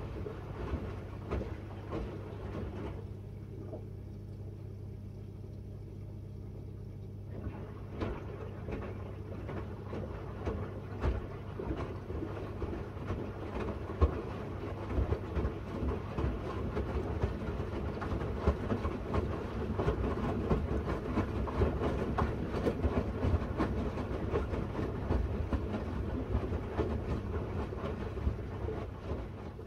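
Miele W1 front-loading washing machine running a wash cycle: a steady motor hum under the rustle and soft knocks of laundry tumbling in the turning drum, quieter for a few seconds near the start before the tumbling picks up again.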